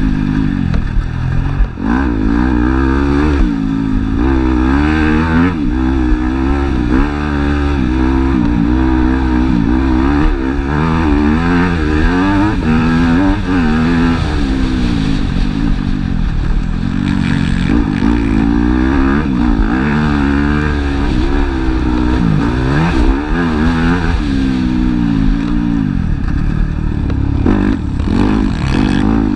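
Motocross bike engine, heard up close from a camera on the bike, revving up and down again and again as the throttle is opened and closed through the track's straights and turns, with a few sharp knocks from the bike over the rough dirt.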